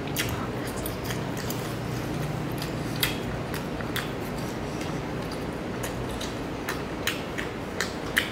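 Close-up eating sounds: a person chewing seafood, with scattered small clicks and crackles, more of them near the end as a lobster tail's shell is handled and pulled apart.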